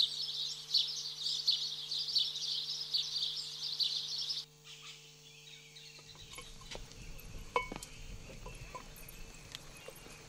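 Dense, high chorus of birds chirping that cuts off abruptly about four and a half seconds in, leaving a quieter outdoor ambience with a low rumble and scattered faint clicks and knocks.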